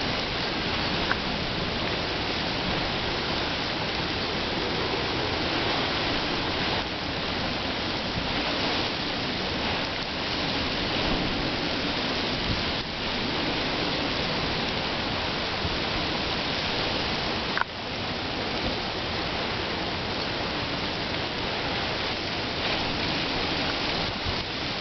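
Steady rushing noise of a hurricane's heavy rain and wind, with one brief knock about two-thirds of the way through.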